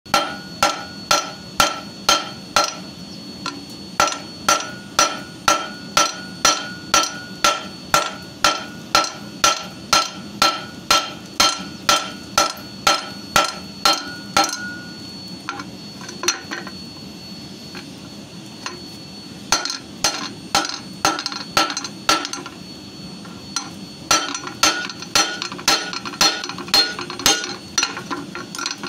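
Hand hammer striking a red-hot steel bar on a steel-plate anvil, flattening the leaf: steady blows about two a second, each with a metallic ring. The hammering stops for a few seconds about halfway, picks up again, and pauses briefly once more before the end.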